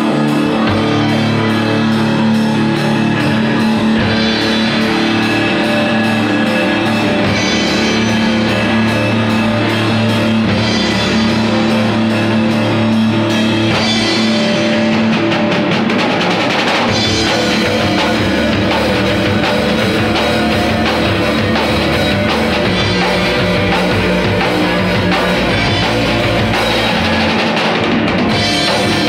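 Rock band playing an original song: electric guitar over a steady drum kit beat, loud and continuous.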